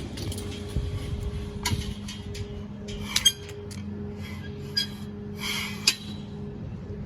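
A few sharp metallic clinks and rattles, a second or so apart, over a steady low engine hum.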